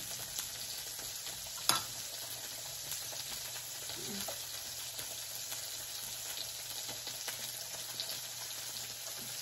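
Pork belly and other meat sizzling steadily on a tabletop electric griddle, with one sharp click about two seconds in.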